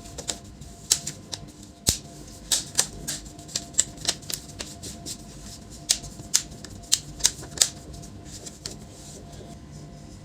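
Irregular sharp clicks and taps, several a second, from a laptop's plastic case parts being handled and snapped back together during reassembly. The clicks thin out near the end.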